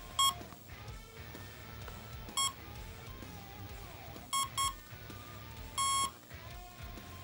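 Electronic beeps from the RC plane's electronics as it is powered up on its 2S battery. There are five beeps of the same pitch: two single beeps, a quick double beep, then a longer beep near the end.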